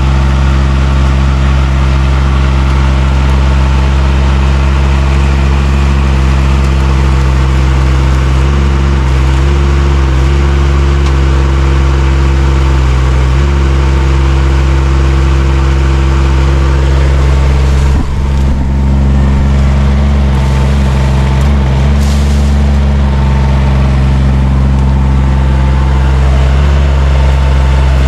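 Mini excavator's engine running steadily at working speed while the rake attachment tears out brush and saplings. Its note shifts briefly under hydraulic load, with a short dip about two-thirds of the way through.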